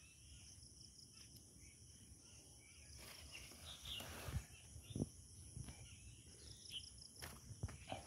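Soft footsteps on dry, loose garden soil: a handful of irregular steps starting about three seconds in, over a faint steady high-pitched background.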